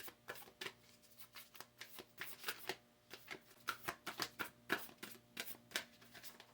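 A deck of tarot cards being shuffled by hand: a quick, uneven run of papery clicks and rustles that stops near the end.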